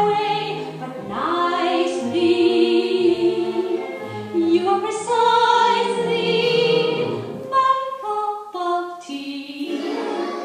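Recorded musical-theatre song played over a loudspeaker: trained voices singing held notes with vibrato, the pitch gliding between notes, over a light accompaniment.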